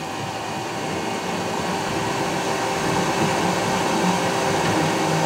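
Raise3D N1 3D printer running a print: a steady whir of its fans, with short low hums from the stepper motors twice near the end as the print head moves.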